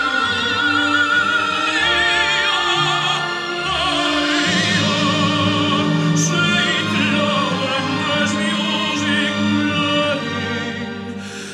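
Operatic singing with a strong vibrato over an orchestra: a recording played through an EL34 push-pull tube amplifier and a pair of vintage floor-standing speakers, heard in the room.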